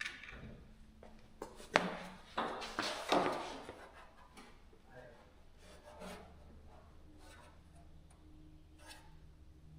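A cardboard-backed sound-deadening pad being folded and pressed into place: a sharp click a little under two seconds in, then about a second of rubbing and scraping, then faint handling sounds.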